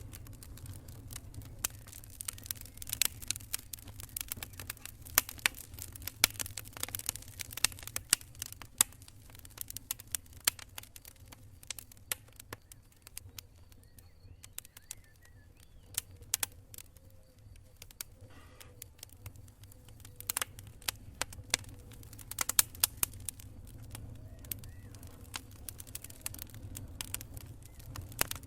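Wood campfire crackling, with sharp irregular pops and snaps over a low steady rumble; the pops come in busier clusters a few seconds in and again past the middle.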